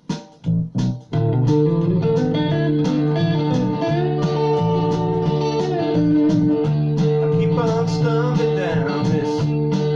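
Rough home demo of a guitar-led song, recorded on a Tascam four-track cassette recorder and played back from CD. A few sharp hits open it, then guitars and bass come in steadily about a second in.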